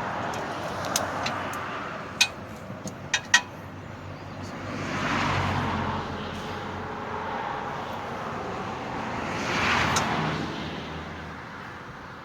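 Cars passing by: two of them swell up and fade away in turn, over a steady traffic hum. A few sharp clicks come in the first few seconds.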